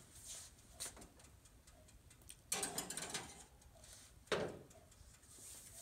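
Countertop toaster oven being loaded and set. A metal baking pan and the oven door knock and clatter, loudest about two and a half seconds in, with a sharp knock just after four seconds. Small clicks and ticking come from its control dials and mechanical timer.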